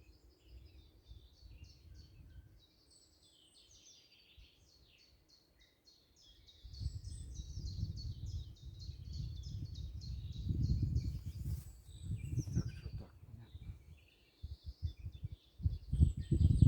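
Small songbirds singing in a spring forest, one giving a long run of short, high, rapidly repeated notes. From about six seconds in, a low rumbling noise comes and goes in gusts and at times drowns the birds.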